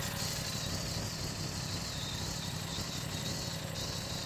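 Aprilia RS660's 659cc parallel-twin, with its 270-degree crank, idling steadily through the stock exhaust.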